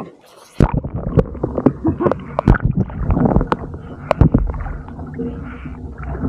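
Water sloshing and slapping against a camera held at the waterline beside a kayak: a rumbling gurgle full of sharp knocks, starting about half a second in.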